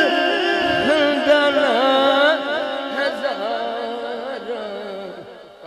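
A man's voice singing a naat through a microphone, drawing out ornamented, wavering notes over a steady drone. The singing fades away over the few seconds.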